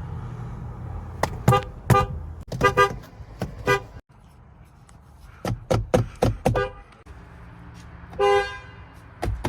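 GMC vehicle horns sounding in quick short toots, several in a row. After an abrupt cut about four seconds in, a second horn gives four more quick toots, then one longer honk near the end. A low engine rumble runs under the first set of toots.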